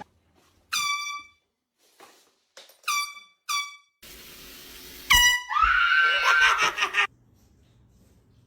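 Air horn blasted in short bursts: three sharp blasts in the first few seconds and a loudest one about five seconds in, each dipping in pitch as it starts. A loud, wavering sound that cannot be identified follows the last blast for about a second and a half.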